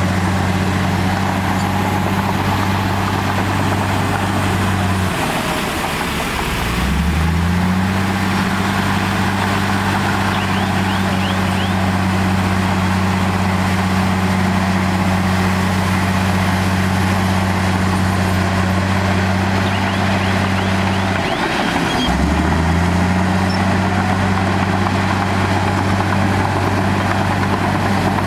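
Heavy diesel engine of earthmoving machinery running steadily. Twice, about five seconds in and again about twenty-one seconds in, its pitch drops sharply and then climbs back up, as the engine is lugged down under load and recovers.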